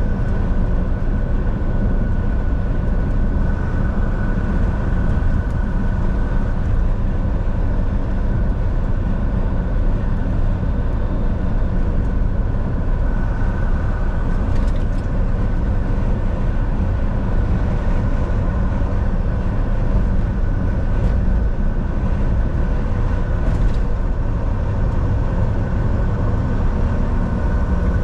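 Volvo semi truck driving on the road: steady engine and tyre rumble, with a faint steady whine over it.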